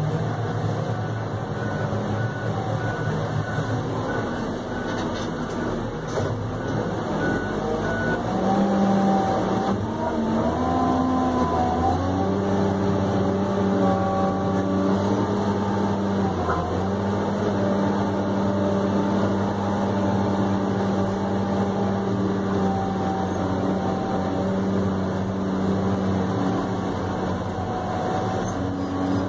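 New Holland RG140B motor grader's engine running as the machine moves, heard from inside the cab. The engine pitch climbs about a third of the way in and then holds steady.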